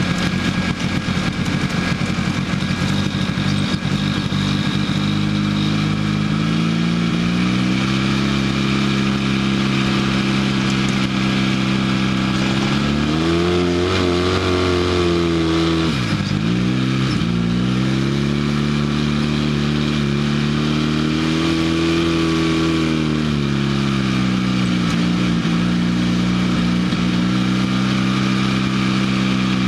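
Off-road vehicle's engine pulling across sand, its revs rising gradually to a peak as it climbs a dune slope, dropping sharply about sixteen seconds in, then building up and easing off again.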